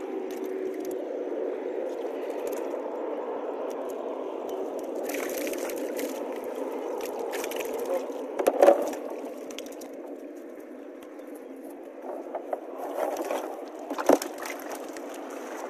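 Water sloshing and splashing as a cast net is hauled out of shallow water and tilapia are emptied into a plastic tub, with a few sharp splashes and knocks, the loudest about halfway through and again near the end, over a steady low rush.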